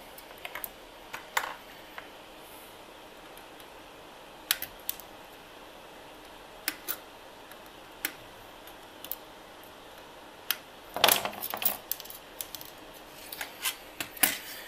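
Scattered sharp metallic clicks and snips of small hand tools working component leads on a circuit board, with a louder flurry of clicks and knocks about eleven seconds in as the board is handled.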